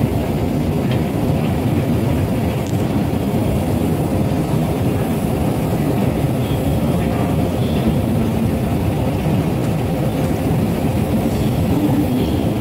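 Steady low rumble of a descending escalator in a metro station, running evenly without a break.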